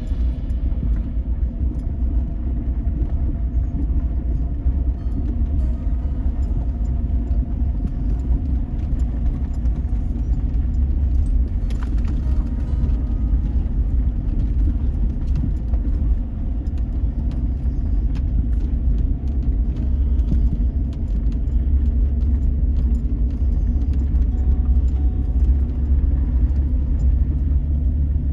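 A vehicle on the move, heard from inside: a steady low road rumble with light rattling and jingling.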